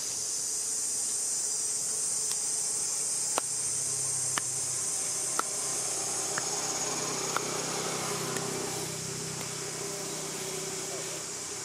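Insects buzzing in a steady high-pitched drone, with a sharp tick about once a second through the middle.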